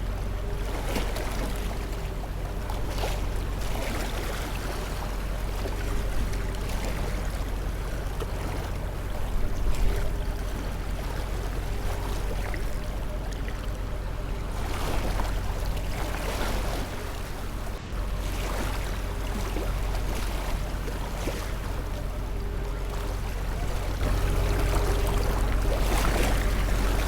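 Continuous rushing noise of moving water over a deep, steady rumble. It swells every second or two, and a faint hum comes and goes.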